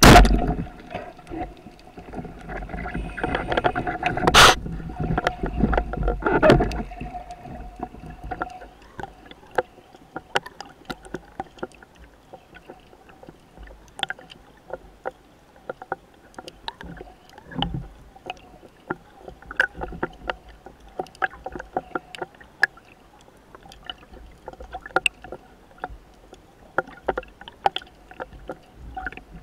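Underwater sound on a spearfishing dive. A sharp loud knock comes right at the start, then several seconds of churning water with another loud crack. After that only scattered sharp clicks and crackles remain, over a faint steady hum.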